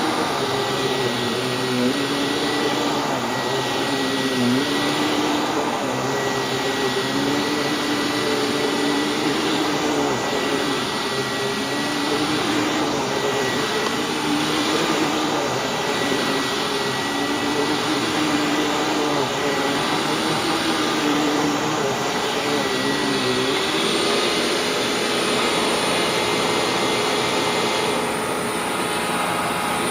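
Hoover WindTunnel Widepath upright vacuum cleaner running loud as it is pushed back and forth over carpet. Its motor pitch dips and recovers every couple of seconds with the strokes. Near the end the sound becomes slightly duller.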